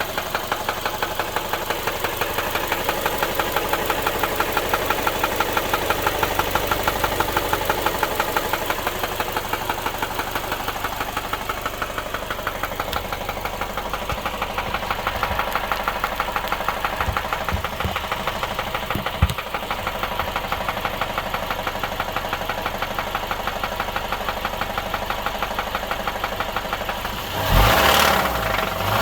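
Subaru boxer engine running with a steady, rapid knock in time with the engine: the unexplained knocking noise the owner is asking about. Near the end there is a brief, louder rush of noise.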